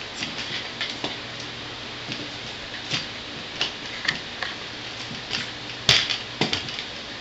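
Targus TG5060TR tripod being handled: a string of irregular clicks and small knocks from its parts, the loudest a sharp snap about six seconds in.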